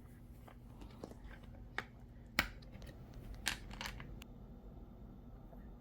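A few scattered small clicks and taps of handled objects, the sharpest about two and a half seconds in and a small cluster a second later, over faint room tone.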